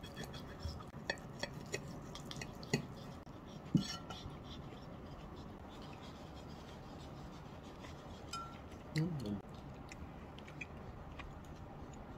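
Metal fork clinking and tapping against porcelain plates, a few light scattered clicks mostly in the first four seconds. A brief low sound with a wavering pitch comes about nine seconds in.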